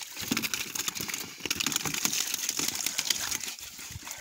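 Irregular splashing and knocking around a wooden canoe in shallow water as cari (armored catfish) are handled and dropped into the hull: a dense, uneven run of small clicks and dull thuds.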